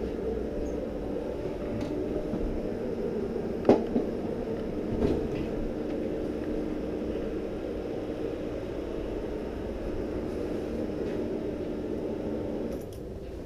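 1986 Yamaha Maxim X (XJ700X) inline-four engine idling steadily in neutral, with a few sharp knocks about four and five seconds in. The engine is switched off near the end and the sound drops away.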